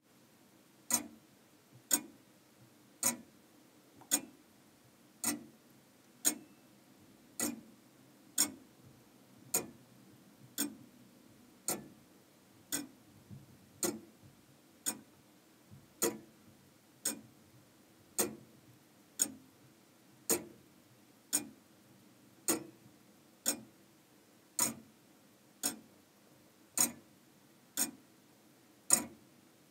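Comtoise (Morbier) pendulum clock ticking steadily, one sharp tick a little over every second.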